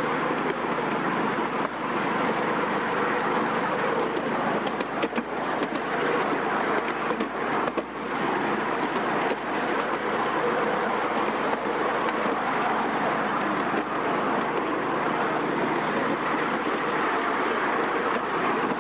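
Ride-on miniature train running along its track, heard from a passenger car: steady wheel-on-rail rumble, with a few clicks about five and eight seconds in.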